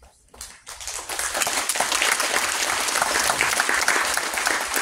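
Audience applause: a few scattered claps that swell within about a second into full, steady clapping from the crowd.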